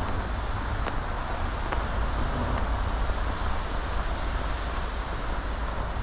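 Wind buffeting the microphone of a camera carried on a run through a snowstorm, a steady deep rumble with a hiss over it, and faint ticks about once a second.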